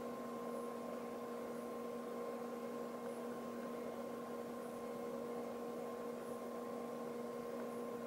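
Steady electrical hum, a few even tones held over a faint hiss: the room tone of the recording.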